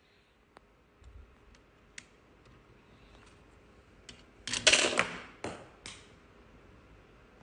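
Hard plastic model-kit parts clicking and tapping as they are handled and fitted together: scattered small clicks, then a louder clatter of plastic just past halfway and two sharper clacks after it.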